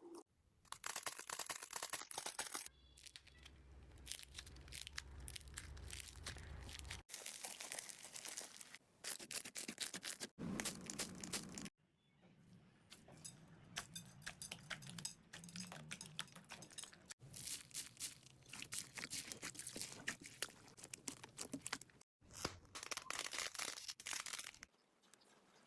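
Slime being squished and stretched by hand, giving dense crackling, crinkling clicks. The sound changes abruptly every few seconds, as separate short clips are cut together.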